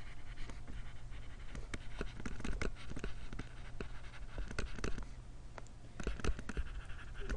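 Stylus tapping and scratching on a tablet screen while handwriting, in short irregular strokes with a brief pause near the middle, over a steady low hum.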